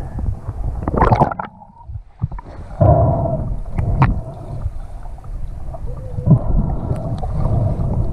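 Lake water splashing as a handheld action camera goes under the surface, then muffled underwater gurgling and water rushing over the camera housing, with a few sharp ticks.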